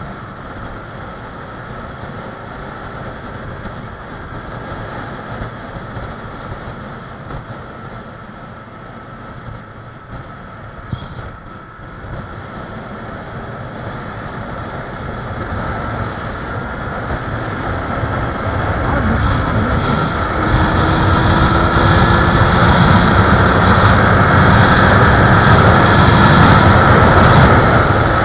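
Yamaha YZF-R25 motorcycle's 250 cc parallel-twin engine running under way, mixed with wind rushing over the camera microphone. The sound builds steadily over the second half as the bike speeds up to about 130 km/h, then eases slightly at the very end.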